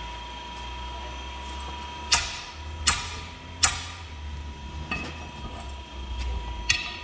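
Hammer blows on a steel tire iron wedged at the bead of a large OTR tire, working the bead off the rim to dismount it: three sharp ringing metal strikes less than a second apart, then two lighter ones, over a steady shop hum.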